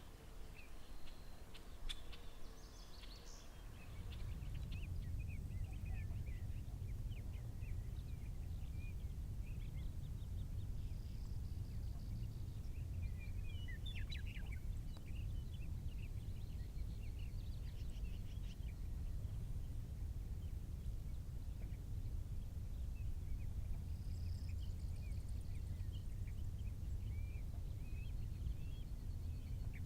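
Various small birds chirping and calling, many short notes. From about four seconds in, a steady low rumble underlies them and is the loudest sound.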